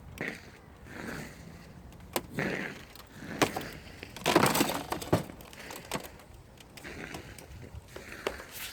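Ice cracking and crunching in a run of sharp snaps and cracks, with the loudest, longest crunch about four and a half seconds in.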